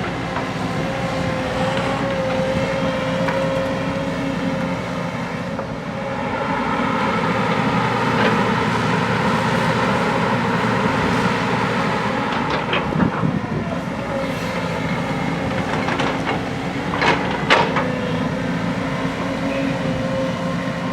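JCB backhoe loader's diesel engine running under working load with a steady hydraulic whine, dipping briefly about six seconds in and then picking up again. A few sharp metallic clanks come through, two of them close together near the end.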